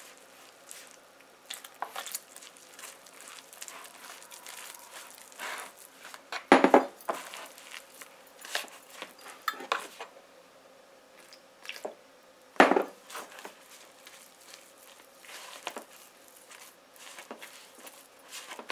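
Hands mixing flour and water into a roti dough in a plastic bowl: soft rustling and squishing with scattered light clicks. Two sharper knocks stand out, about a third and about two-thirds of the way through.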